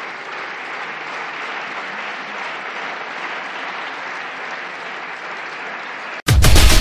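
Deputies in a parliamentary chamber applauding, a steady mass of clapping. Just over six seconds in it cuts off abruptly and loud music begins.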